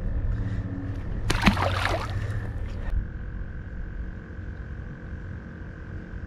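Wind rumbling on the microphone over open water, broken by a short loud splashy burst about a second and a half in, as the small speckled trout is let go over the side of the kayak. After about three seconds a faint steady high note sits over the rumble.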